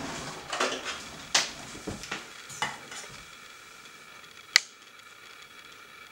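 Light clicks and clinks of kitchen utensils and dishes: several soft taps in the first three seconds, then one sharp click, the loudest, about four and a half seconds in.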